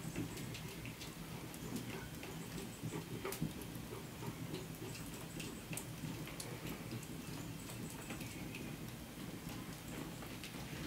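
Hand-stuffing sausage meat into casings: quiet handling sounds with faint, irregular clicks over a low steady hum.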